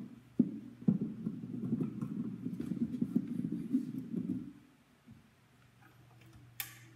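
Microphone handling noise: two knocks, then a few seconds of low rubbing and rumbling as the handheld mic is fitted back into the clip on its stand. A short sharp hiss-like click comes near the end.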